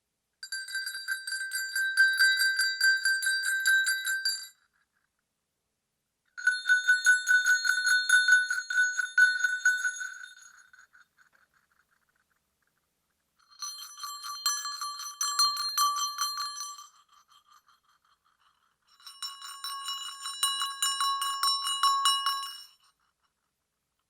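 Sleigh bells shaken in four bouts of about three to four seconds each, a dense jingling with a steady ring under it. The first two bouts ring higher in pitch than the last two, as if two different sets of bells were played.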